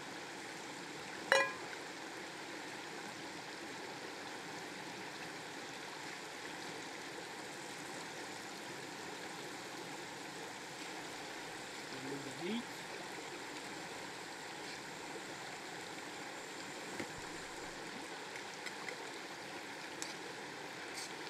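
Steady rush of running creek water, with a single sharp ringing clink about a second in.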